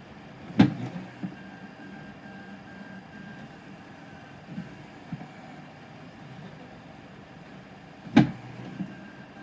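Prusa SL1S resin 3D printer's tilt mechanism banging loudly twice, about seven and a half seconds apart, each bang followed by a softer knock, with fainter knocks in between over a steady hum. The tilt movement is struggling on these layers.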